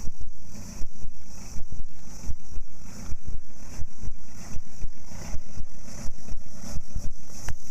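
Wind buffeting the phone's microphone in uneven gusts of low rumble, over a steady high-pitched hiss.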